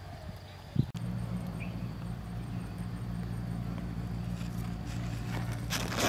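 Steady low hum of a clustered honeybee swarm, starting about a second in after a short knock. A rustle comes near the end.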